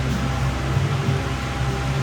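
Steady whirring hum of a small electric motor, with an even hiss over it.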